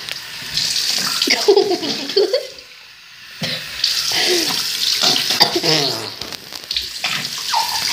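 Bathroom sink tap running into the basin while a boy cups water in his hands and rinses soap out of his mouth, with a few short voice sounds. The water drops away briefly about two and a half seconds in.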